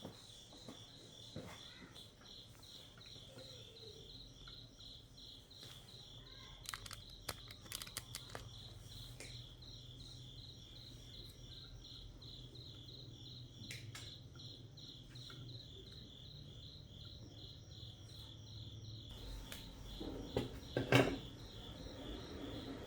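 Insects chirping steadily in a fast pulsing trill, with scattered clicks and knocks of things being handled; the loudest knock comes near the end. A faint low hum runs through the middle.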